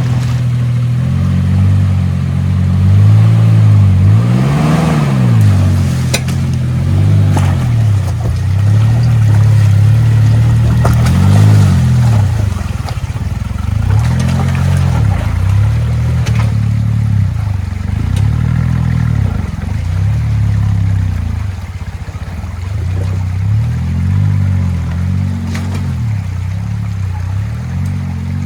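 Suzuki Jimny JA11's engine revving up and falling back again and again under load as it crawls up a rocky waterfall, with occasional short knocks.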